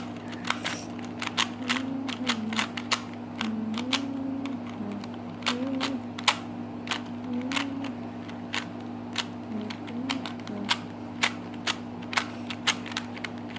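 Rubik's Cube being scrambled: its plastic layers twisted in quick, irregular turns, each turn a sharp click, several a second, over a steady low hum.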